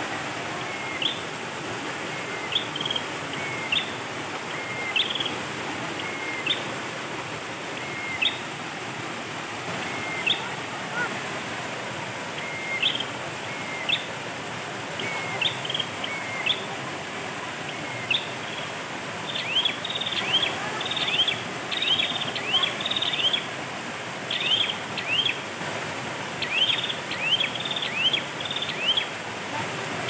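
Steady rush of a shallow stream flowing over rocks, with a bird calling in short, sharp descending chirps, about one a second at first and in quick runs from about two-thirds of the way in.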